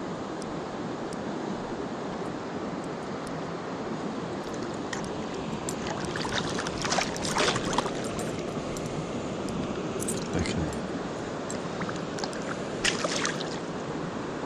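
Steady rush of river water, broken by a hooked fish splashing and thrashing at the surface: a burst of splashes about halfway through, another a few seconds later, and one more near the end.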